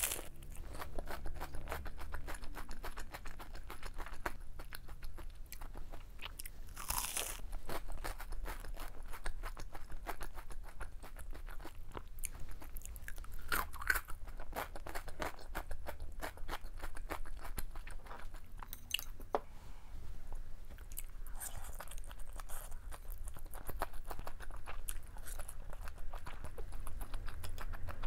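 Crunchy chewing of deep-fried shrimp toast (menbosha), close to a clip-on microphone: a steady crackle of small crunches, with a few louder crunching bites along the way.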